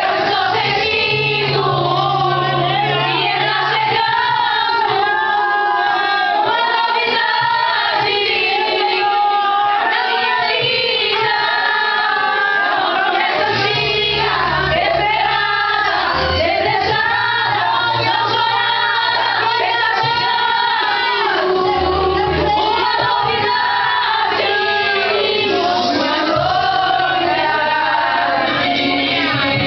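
Music: voices singing a melody together over held low accompaniment notes.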